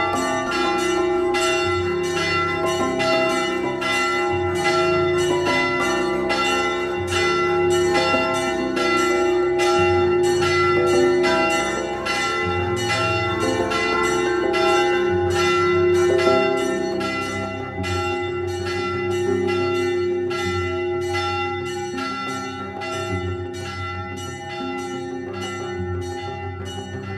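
Church bells ringing the call to the service, several bells striking over each other about twice a second with a sustained ring, fading somewhat near the end.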